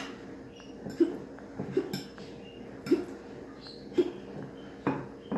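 A fork knocking against a casserole dish about once a second, six sharp taps in all, as sausage pieces are knocked off it into the dish.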